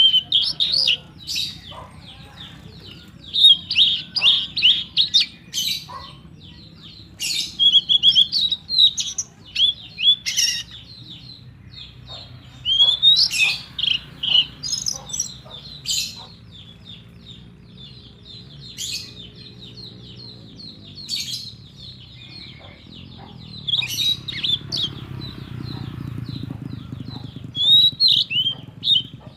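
Small birds chirping and twittering in repeated short bursts, over a steady low hum.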